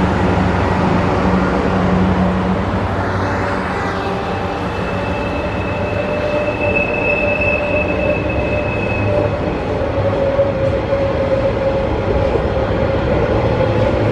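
Pacific National diesel locomotive PN001 passing under heavy power as it hauls a container freight train up a grade. Its engine drone fades in the first few seconds into the steady rumble of container wagons rolling by, with wheels squealing from about five seconds in.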